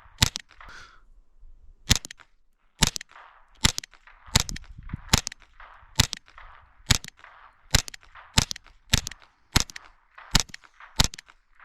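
.22 LR rifle shots fired in steady quick succession, about fourteen sharp cracks roughly one every three-quarters of a second, with one longer pause after the first shot.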